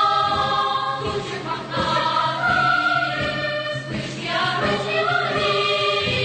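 Choral music: a choir singing long held notes that move from chord to chord.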